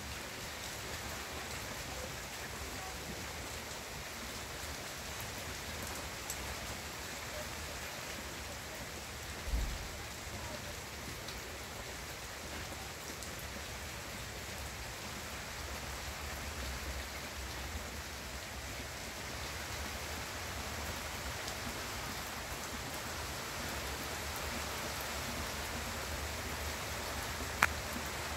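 Steady rain falling on garden foliage, an even hiss with a low rumble beneath it. A dull thump comes about a third of the way in, and a single sharp click near the end.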